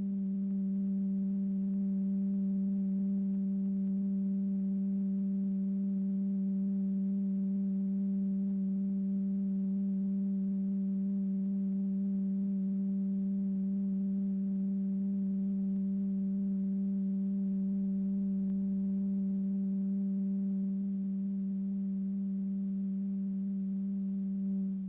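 Steady, low electronic tone with a few fainter overtones, holding one pitch throughout: the excitation tone that sets the diaphragm vibrating.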